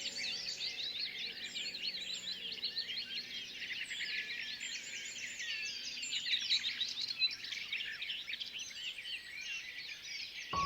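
A dense chorus of many small birds chirping, with quick high chirps overlapping one another. Soft sustained music tones fade out in the first two seconds or so.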